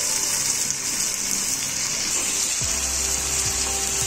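Pieces of goat liver sizzling steadily in hot oil with fried onions in a kadhai: freshly added meat hitting the hot oil.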